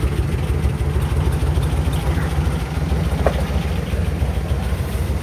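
1952 Willys M38A1 Jeep's engine idling steadily right after being started, an even low rumble.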